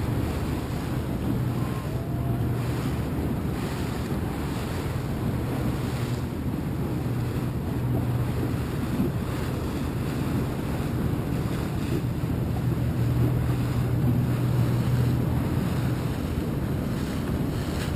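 Motor tender running with a steady low hum through choppy water, with wind buffeting the microphone and water splashing against the hull.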